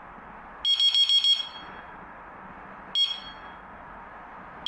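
The piezo buzzer of a Topvico door handle alarm beeps as its sensitivity level is set. About half a second in comes a quick run of about five high-pitched beeps, the lowest-sensitivity signal. About three seconds in comes a single beep, the highest-sensitivity signal.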